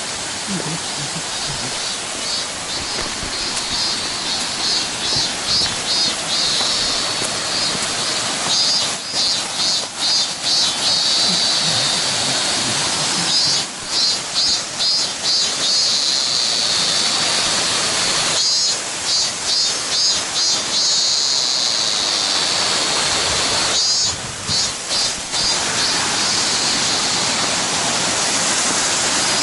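Waterfall rushing in a steady loud hiss, with a high pulsing buzz that comes and goes over it.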